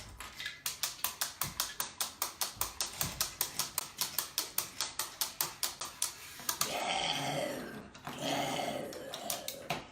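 Rapid, even clicking of a LEGO toy mechanism being worked, about six clicks a second for roughly six seconds. Then a person's growling voice, in play as a dinosaur, over the last few seconds.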